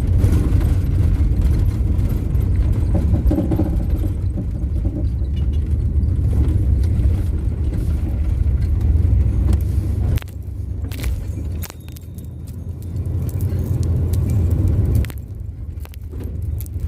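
Van driving, its engine and road rumble heard from inside the cabin with a light jangling rattle. About ten seconds in the rumble drops and turns uneven, with a few clicks.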